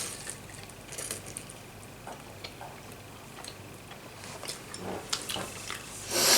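Eating sounds: small scattered clicks of utensils against a bowl, with quiet mouth noises, and a loud breathy burst about six seconds in.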